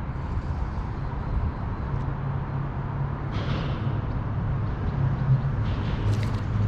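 Steady rushing of river water with a strong low rumble, and a brief hiss about three seconds in.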